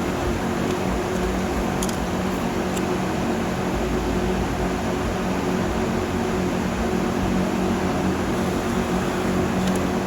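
Steady whir and hum of an electric fan running, with a couple of faint ticks about two and three seconds in.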